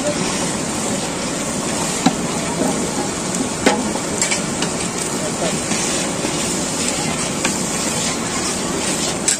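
Chicken curry sizzling in a large iron kadai as a long metal spatula stirs it, scraping and knocking against the pan a few times over a steady rushing sizzle.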